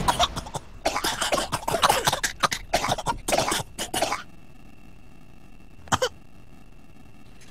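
Voices of cartoon meerkats coughing and clearing their throats in quick, irregular fits for about four seconds, then a faint steady hum broken by one short sound about six seconds in.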